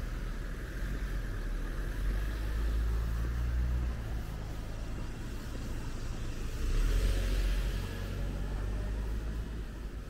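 Low, steady rumble of road traffic, with a car passing by about seven seconds in, swelling and fading.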